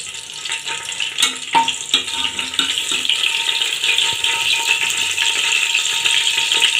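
Whole spices (cinnamon, cloves, cardamom and bay leaves) sizzling in hot oil and ghee in an aluminium pressure cooker, being tempered until they brown. The sizzle grows louder after about three seconds, with a few sharp clicks in the first two seconds.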